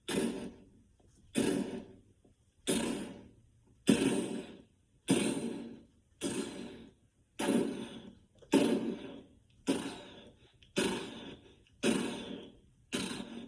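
A man imitating Godzilla's giant footsteps with his mouth into a microphone: twelve heavy, evenly spaced thuds about a second apart, each dying away quickly.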